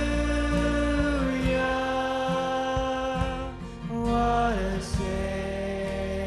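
Slow music: a voice holding long notes that step from one pitch to the next, over a steady low accompaniment.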